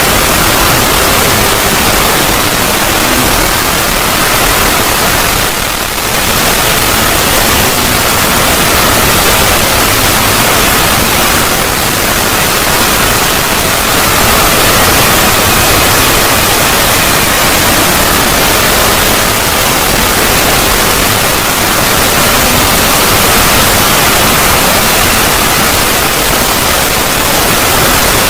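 Loud, steady static hiss of a Void-logo sound effect, full from low to high, with a brief dip near six seconds in.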